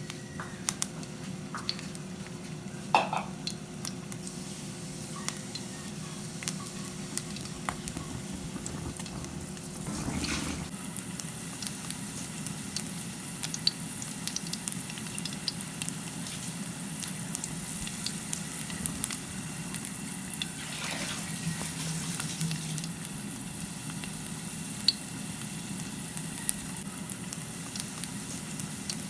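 Food sizzling as it fries in a pan, with scattered light clicks and scrapes of a utensil stirring it.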